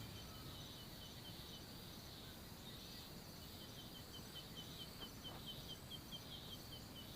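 Faint outdoor ambience: a steady low hiss with short high chirps, a few scattered at first, then a quick run of about five a second from about halfway through.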